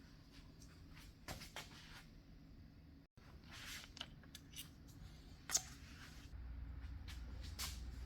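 Faint, scattered clicks and scrapes of hand tools and parts being handled, with a low steady hum coming in near the end.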